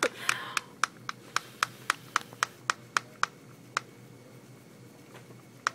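A paper folder waved rapidly to fan air at a temperature sensor, flapping with a sharp snap about four times a second for about three and a half seconds, then one more snap near the end.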